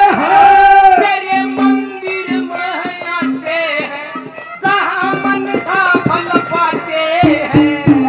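A man singing a ragni, a Haryanvi folk song, loudly into a microphone with long held, bending notes, over drum accompaniment.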